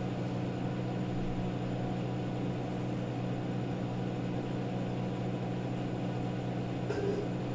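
Steady low hum over a faint hiss, unchanging throughout: the background hum of a classroom with a fan or mains-powered equipment running.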